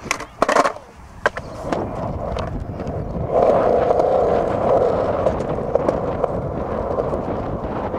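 Skateboard wheels rolling over smooth concrete, with a few clicks and knocks in the first second or two, then a steady rolling noise that gets louder about three seconds in.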